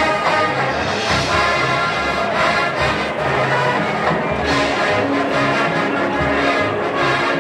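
Marching band playing a brass-led arrangement, with horns carrying the tune over drums.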